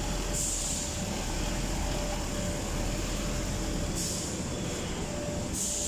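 Forklift running close by, its engine making a steady low drone with a thin steady whine over it. Short hisses come about half a second in, at about four seconds and near the end.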